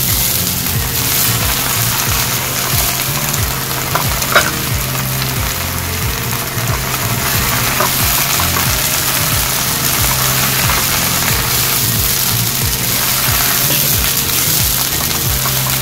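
Washed spinach leaves and garlic sizzling in hot oil in a non-stick frying pan as they wilt, stirred with a plastic spatula that scrapes and clicks against the pan, with one sharp knock about four seconds in.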